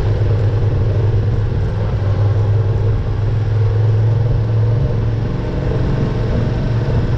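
Yamaha Ténéré adventure motorcycle riding at a steady speed on a gravel road: a steady low engine drone mixed with wind and tyre noise, heard from on the bike.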